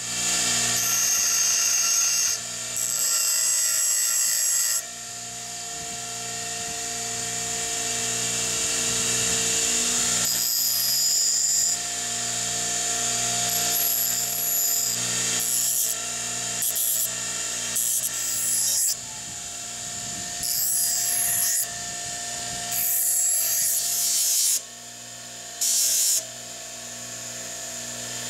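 Electric grinder running with a steady motor hum while a hardened carbon-steel knife tang is pressed on and off against the spinning stone wheel, giving repeated bursts of harsh grinding as grooves are cut into the tang.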